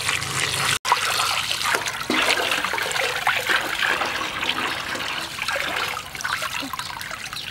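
Water splashing and sloshing in a metal basin as a raw stingray is scrubbed and rinsed by hand, with a stream of hose water pouring over it into the basin. The sound cuts out for an instant just under a second in.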